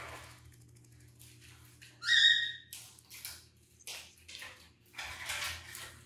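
Blue-and-gold macaw gives one short, loud squawk about two seconds in, with several short bursts of scratchy rustling around it.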